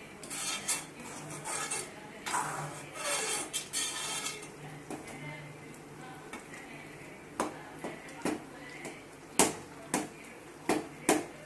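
A ladle stirring a thick egg curry in a metal cooking pot, scraping and sloshing for the first few seconds. From about seven seconds on come several sharp knocks of the ladle against the pot.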